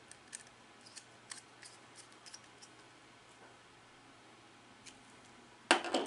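Light clicks of a small screwdriver working the terminal screw on a push button's plastic contact block, then a short, louder cluster of plastic clacks near the end as the contact block and button assembly are handled.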